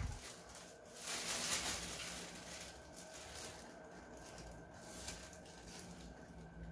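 Plastic bag rustling and crackling as air from a quiet inline duct fan on its low 140 m³/h setting blows into it, the rustle flaring up about a second in. A faint steady tone from the fan runs underneath.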